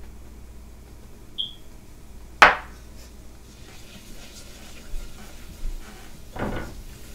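Small glass bowl knocked against a nonstick skillet as flour is tipped into the pan drippings: a brief ping, then one sharp clink about two and a half seconds in. Near the end a small whisk scrapes across the pan, working the flour into the fat to start a roux for gravy.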